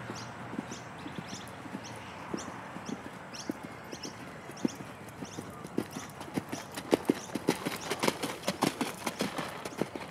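Hoofbeats of a horse being ridden on a sand arena: a steady run of soft thuds that grow louder about two-thirds of the way through as the horse passes close by.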